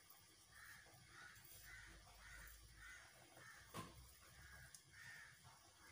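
Near silence with faint bird calls repeating a few times a second in the background, and one soft click about four seconds in.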